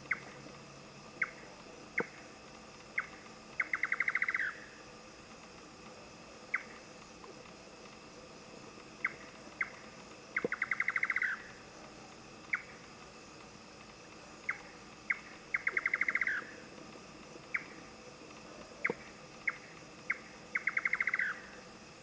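Indian nightjar singing: single sharp 'chuk' notes spaced a second or so apart, each run ending in a quick rattling trill lasting about a second. The phrase comes four times.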